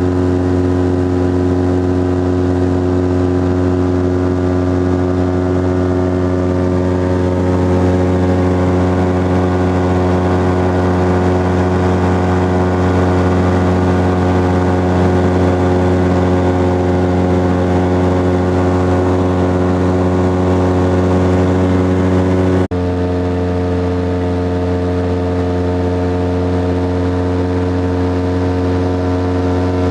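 Titan Tornado light aircraft's engine and propeller droning steadily in cruise flight, heard from inside the cockpit. There is a brief break about three-quarters of the way through, after which the drone continues slightly quieter.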